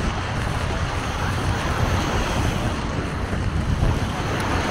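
Wind blowing across the microphone as a steady low rumble, over the continuous wash of waves breaking on the beach.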